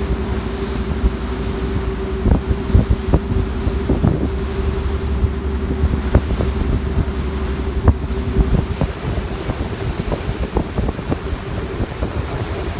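Passenger ferry's engines running with a steady low drone and a steady higher hum over it, while wind buffets the microphone in irregular gusts.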